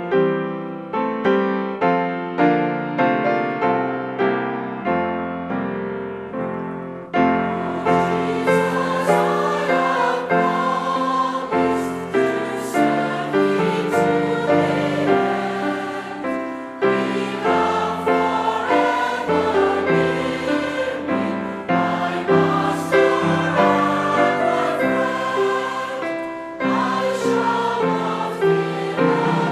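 Closing music: a piano plays alone for about seven seconds, then a choir comes in singing over the keyboard accompaniment.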